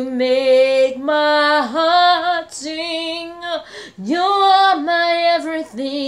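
A woman singing unaccompanied, drawing out long held notes of a praise song with short breaths between phrases.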